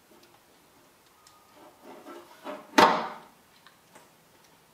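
Metal engine parts being handled: faint taps and knocks, then one sharp metallic clank about three seconds in that rings briefly.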